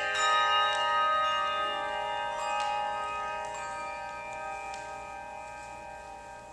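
Handbell choir ringing a chord of many handbells: a few fresh bells are struck in the first three or four seconds, then the chord rings on and slowly dies away.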